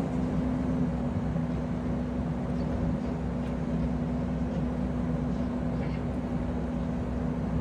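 Kubota SVL75-2 tracked skid steer's four-cylinder turbo-diesel engine running steadily, its pitch easing down slightly about a second in.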